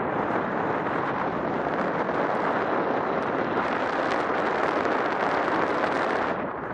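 Wind rushing over the camera microphone as a paraglider glides through the air: a steady, loud rushing noise that thins out briefly near the end.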